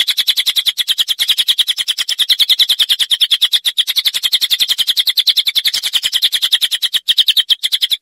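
A small songbird's rapid chattering song: high notes repeated very fast and evenly, about a dozen a second, with a few brief breaks.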